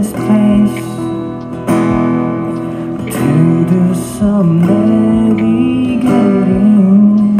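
A young man singing a slow song into a microphone while strumming an acoustic guitar, both amplified through a small portable amplifier; the voice holds long notes that slide between pitches.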